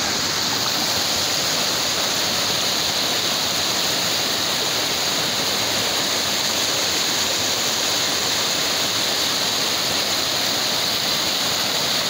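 Shallow river water rushing steadily over flat rocks in small rapids, a constant splashing rush.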